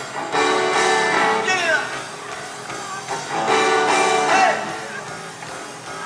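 Live rock band with electric guitar playing a short repeated lick about every three seconds, with sliding, bent notes.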